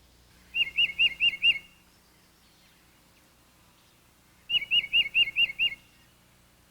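A songbird singing two songs, each a quick run of five clear, slurred whistled notes, about four seconds apart.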